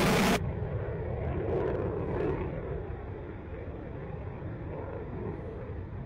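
F-35 fighter jet's single turbofan engine in flight: a loud jet roar that cuts off abruptly about half a second in, then a lower, quieter engine noise from the jet flying far off, fading slowly.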